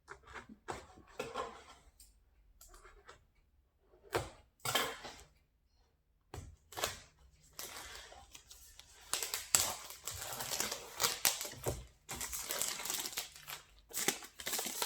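Packaging being opened by hand, tearing and crinkling. Scattered rustles and rips come first, and after a short pause the crinkling and tearing become nearly continuous.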